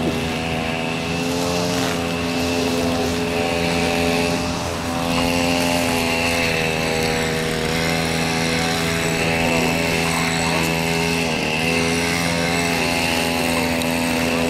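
A steady engine drone, its pitch holding constant except for a brief dip about eleven seconds in.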